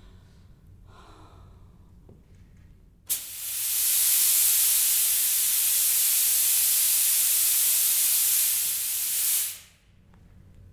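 Stage fog machine hissing as it pushes out a burst of haze: the loud, steady hiss starts abruptly about three seconds in, holds for about six seconds, then dies away.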